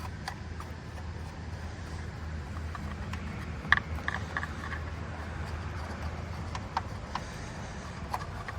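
Scattered sharp clicks and small knocks of hand tools and plastic parts being worked in a car's engine bay, one sharper click about four seconds in, over a steady low hum.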